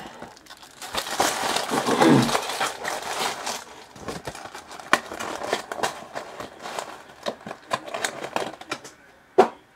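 Foil trading-card pack wrappers crinkling and tearing, with cards rustling and clicking as they are handled; a sharp click near the end is the loudest sound.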